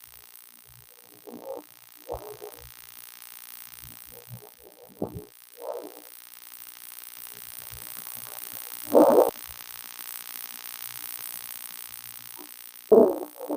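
A woman snoring in her sleep. Short snores come in pairs about every four seconds, and the loudest are about nine seconds in and near the end.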